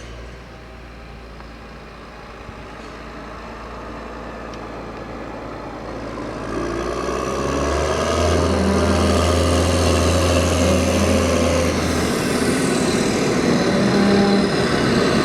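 Case IH Puma CVX tractor running, its engine note and high whining tones getting louder over the first half and then holding steady.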